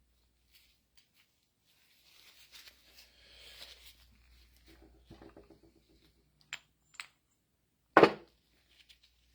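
Parts of a disassembled mini-excavator hydraulic pump being handled: faint rustling and a couple of light clicks, then one loud, sharp knock about eight seconds in.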